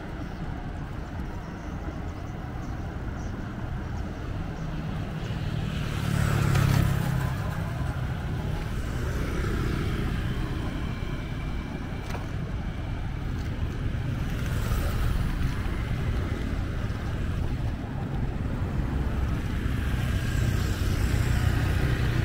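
Steady road-traffic and riding noise: engine and tyre rumble with a noisy haze. It swells louder about six seconds in and again around fifteen seconds, then grows gradually louder near the end.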